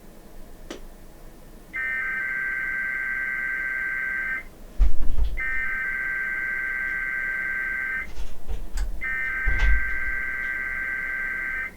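NOAA Weather Radio SAME header for a Required Weekly Test: three bursts of digital data tones, each about two and a half seconds long with about a second between them. Low thumps fall between the bursts, the loudest about five seconds in.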